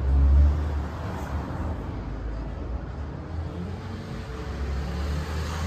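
Low rumble of street traffic, loudest in the first half-second and then steadier.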